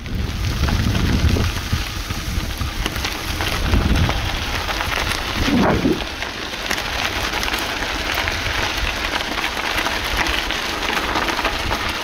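Bicycle tyres rolling over a dirt and gravel forest track: a dense, steady crackle over a fluctuating low rumble. A short squeak rises and falls about halfway through.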